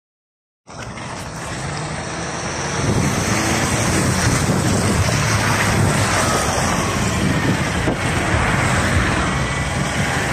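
Volgabus-5270.G2 city bus with its Yuchai YC6L280N-52 natural-gas engine running as the bus pulls up close alongside to the stop, with wind noise on the microphone. It grows louder about three seconds in as the bus comes near.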